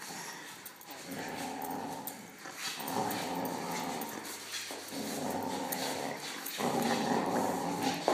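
Dog growling in play while tugging on a stick. There are four long, rough growls, each about a second and a half, with brief pauses between.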